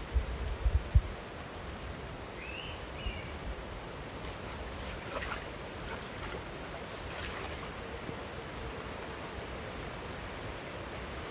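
Steady outdoor hiss, with a few low thumps in the first second, a short high chirp about two and a half seconds in, and faint clicks later on.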